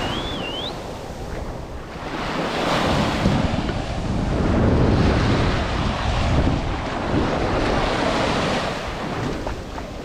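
Ocean waves washing onto the beach, the surf swelling and easing, with wind buffeting the microphone. A brief warbling whistle at the very start.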